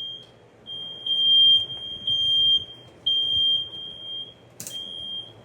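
Smoke alarm sounding: a loud, high-pitched electronic beep repeating in bursts of about half a second to a second with short gaps. A single sharp knock comes about four and a half seconds in.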